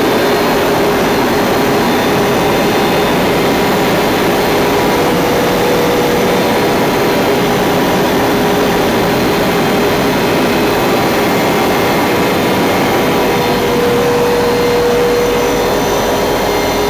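Loud, steady engine and airflow noise heard inside the cabin of a small aircraft in flight, with a faint hum that shifts up slightly in pitch a couple of times.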